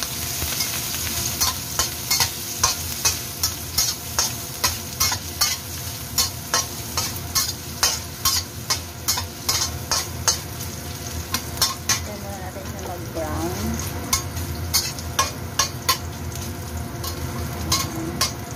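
Garlic and ginger sizzling in hot oil in a stainless steel wok, stirred with a metal spatula that clinks and scrapes against the wok about twice a second for the first twelve seconds, then more sparsely.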